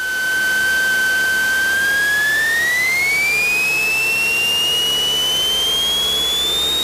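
A high, steady whine in the Cessna 172 Skyhawk's cockpit audio that glides smoothly upward in pitch from about two seconds in as the engine comes up to takeoff power, over a steady hiss of engine and propeller noise. A whine that rises with engine RPM like this is typical of alternator whine leaking into the intercom audio.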